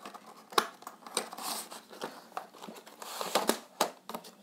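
Cardboard box and plastic inner tray being handled and opened by hand: scraping and crinkling with a few sharp clicks.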